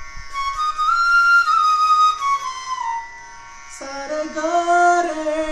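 Bansuri (bamboo transverse flute) playing a short melodic phrase that rises, holds, then falls at the end; about four seconds in, a man's voice sings a gliding melodic line.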